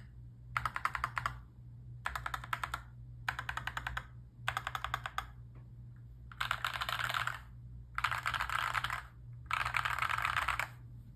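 Typing on a mechanical keyboard with PBT Cherry-profile keycaps: seven short bursts of rapid keystrokes separated by brief pauses. In the first four the clacks are distinct; the last three are faster, with keystrokes running together.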